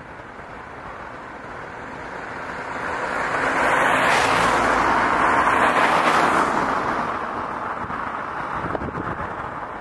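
A vehicle passing by: a rushing noise that swells to its loudest about four to six seconds in, then fades away.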